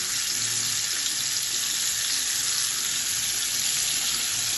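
Whole fish frying in hot oil in a pan: a steady sizzle as seasoning sauce is poured over it.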